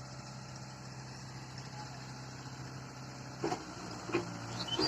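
Mahindra 575 DI tractor's diesel engine running with a steady low hum. A few brief voices break in near the end.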